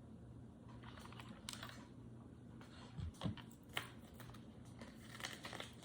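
Scattered faint clicks and taps from handling small objects, with a soft thump about three seconds in, over a faint steady hum.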